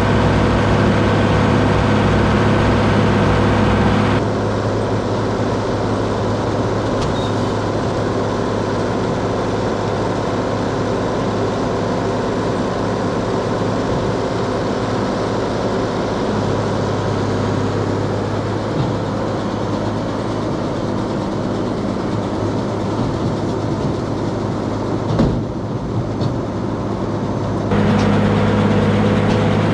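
Deutz D130 06 tractor's air-cooled six-cylinder diesel running steadily while pulling a John Deere 566 round baler. The engine note drops and gets quieter about 4 seconds in and comes back up a couple of seconds before the end, with a single short knock about 25 seconds in.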